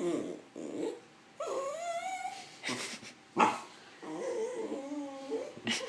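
Shetland sheepdog making a run of whining, grumbling vocal noises that waver up and down in pitch, broken by a few short sharp yips.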